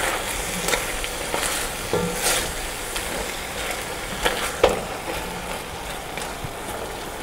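A spatula stirring snails and chunks of meat in an enamelled cast-iron pot: soft scraping with several sharp clicks against the pot, the loudest about four and a half seconds in, over a steady sizzling hiss.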